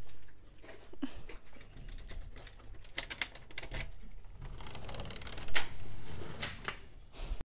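Irregular light clicking and scraping of a small oodle dog's claws on a concrete porch and against a metal security screen door, with one louder knock about five and a half seconds in.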